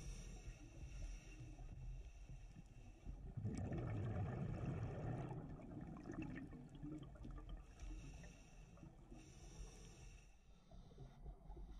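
Scuba regulator breathing heard underwater: a hissing inhale, then a louder bubbling, crackling rush of exhaled bubbles about three and a half seconds in, and two more inhale hisses near the end.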